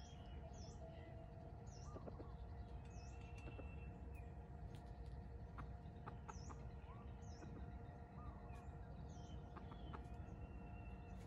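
Faint outdoor birdsong: a small bird repeats a short, high chirp every second or two, with a few soft, short lower calls and scattered faint clicks over a steady low hum.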